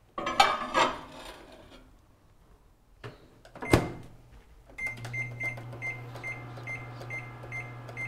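A plate of potatoes is set into a microwave oven with a clatter, and the door shuts with a sharp click. The microwave then starts running with a steady hum and a regular high tick, a little over twice a second.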